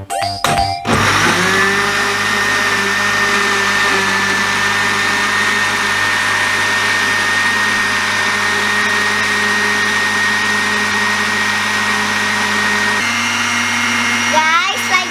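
Countertop blender switched on about a second in: the motor spins up and then runs steadily at high speed with a steady whine, puréeing cincau leaves with water into a green liquid.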